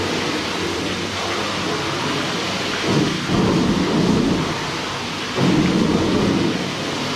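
Water spraying from a hose inside a bulk milk tank, a steady hiss with two louder low surges about three and five and a half seconds in.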